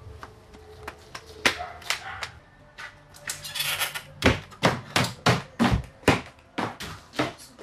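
Quick footsteps knocking on a wooden floor: a few scattered steps at first, then an even run of about three steps a second from about halfway through.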